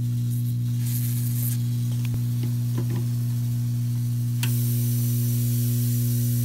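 Steady electrical mains hum from the bench equipment, with a few light clicks of tools being handled. About four and a half seconds in, a click sounds and the hum steps up slightly, with more hiss.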